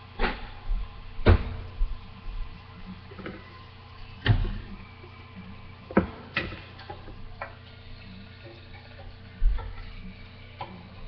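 Scattered knocks and clicks of cookware being handled around an electric contact grill, about six sharp ones at uneven gaps, over a low steady hum. Near the end the grill's lid is lifted.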